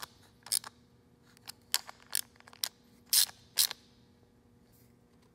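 Sharp metal clicks and clinks from a chrome socket being handled on bolt heads on an aluminum plate. There are about half a dozen in the first four seconds, and then they stop.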